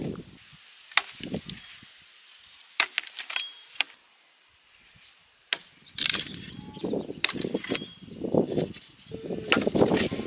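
Axe chopping thin branches on a log: an irregular series of sharp chopping knocks of the blade through wood into the block, with a short pause about four seconds in and quicker blows after it.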